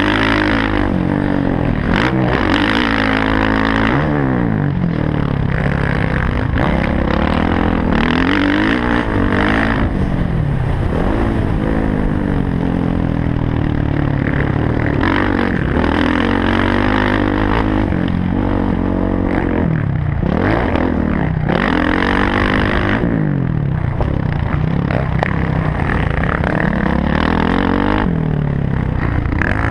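Dirt bike engine heard from the rider's helmet, revving up and falling off over and over as the throttle opens and closes and the gears change around the track.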